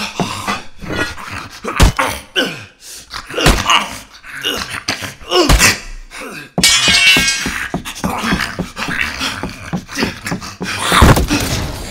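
Produced fight sound effects: a man snarling, grunting and groaning, with heavy thuds and blows of a violent struggle. A harsh, noisy burst comes a little past halfway.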